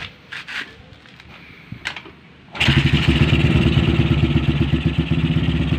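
A few light clicks and knocks, then about two and a half seconds in a stroked-up Honda Tiger single-cylinder four-stroke motorcycle engine, with a 74 mm piston and stock valves, starts and runs with a fast, even beat.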